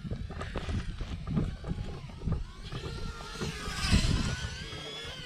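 FPV quadcopter motors whining over wind rush on the microphone. The whine rises and falls in pitch with the throttle and is loudest about four seconds in.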